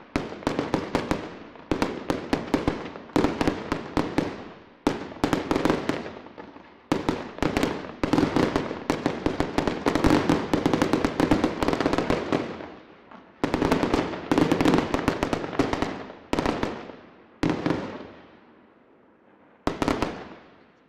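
Aerial fireworks display: volleys of many rapid shell bangs, each volley dying away in a trailing echo. The volleys are densest in the middle, then thin out to a few separate groups, the last a short one near the end.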